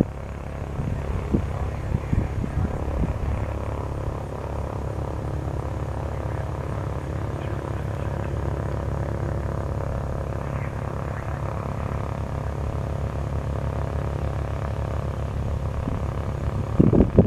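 Cessna 182T Skylane's six-cylinder Lycoming IO-540 piston engine and propeller running steadily at low taxi power. A brief burst of louder noise comes near the end.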